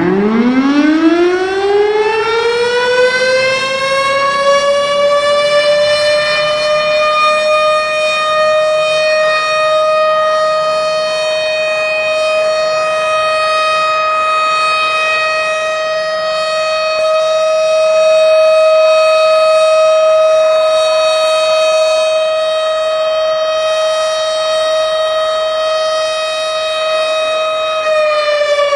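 Warning siren rising from a low pitch to a steady high tone over about the first five seconds, holding it, then starting to fall near the end. It is the siren sounded to mark the moment of the proclamation of Indonesian independence.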